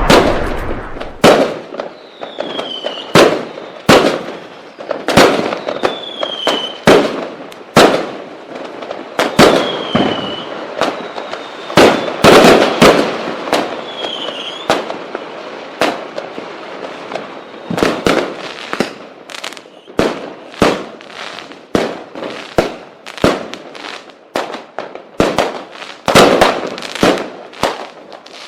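Fireworks going off: a run of sharp bangs and firecracker pops at irregular intervals, with several short whistles falling in pitch in the first half. The pops come thicker and faster in the second half.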